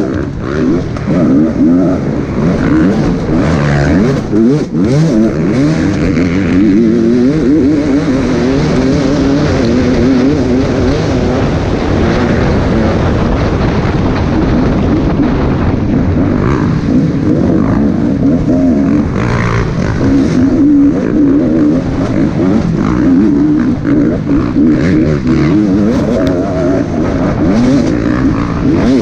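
Engine of an off-road race machine, heard from its own on-board camera, revving up and down continually as it is ridden hard through the course.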